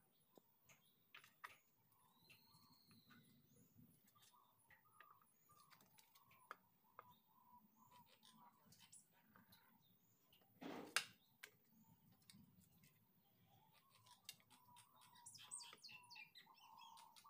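Near silence with faint bird chirps and a few small clicks, one sharper click about eleven seconds in; the chirps cluster near the end.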